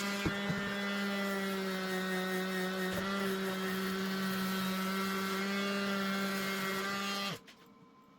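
Welding on aluminium: a steady, even buzz with a hiss over it, cutting off suddenly about seven seconds in.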